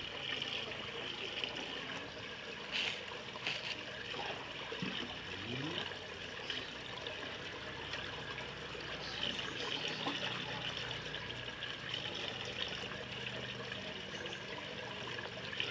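Water trickling and running steadily, with a couple of faint clicks about three seconds in.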